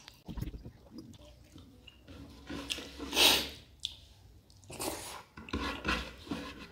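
A person chewing a mouthful of rice and spicy mutton curry eaten by hand, with wet mouth noises and fingers scraping the wooden plate. A louder breathy rush comes about three seconds in, and two more smaller ones near the end.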